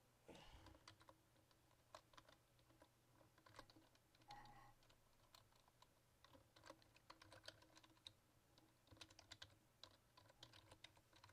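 Faint typing on a computer keyboard: scattered single keystrokes, coming in quicker runs in the second half.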